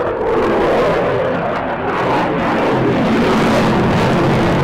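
Jet noise from a Eurofighter Typhoon's two Eurojet EJ200 turbofan engines as the jet flies overhead: a loud, steady rushing roar.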